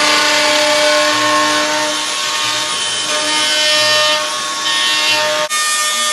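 DeWalt plunge router running at full speed, its bit cutting a concealed-hinge mortise into a wooden door jamb: a steady high whine with the rasp of the cut. The sound changes abruptly and dips briefly about five and a half seconds in.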